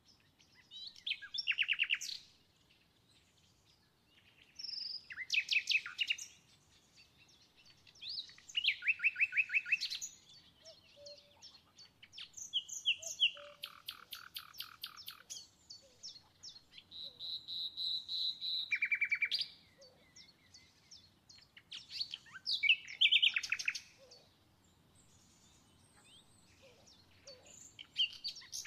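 A small songbird singing in short bursts of quick, rapidly repeated chirps and trills, a new phrase every few seconds with brief pauses between.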